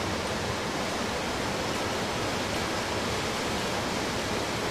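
Small waterfall rushing steadily into a pool: an even, unbroken hiss of falling and splashing water.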